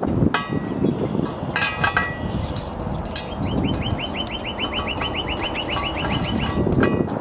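Small metal bolts and nuts clinking as they are handled and fitted to the post hole digger's steel frame. In the middle a bird trills, a rapid even run of short chirps lasting about three seconds.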